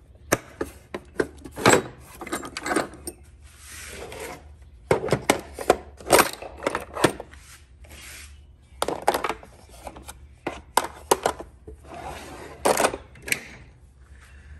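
Tools being handled in a steel tool chest drawer: irregular clicks and clacks of metal and plastic, with rubbing and sliding noises as drawers are shut and opened.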